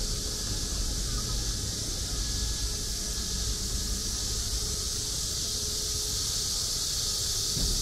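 Steady high-pitched chorus of insects, even and unbroken, over a low outdoor rumble.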